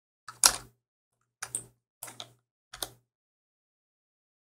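Quick clicks of a computer mouse and keyboard: about seven sharp clicks in four small groups over the first three seconds, then nothing.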